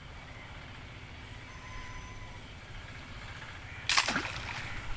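A slingshot rifle is fired at a fish in shallow water about four seconds in: a sudden sharp crack, then a splash as the dart hits the water.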